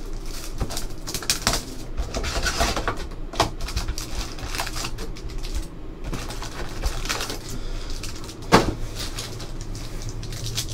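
Panini Select basketball hobby box being unwrapped and opened by hand: irregular crinkling and rustling of plastic wrap and cardboard, the lid and flaps handled, with one sharp snap about eight and a half seconds in.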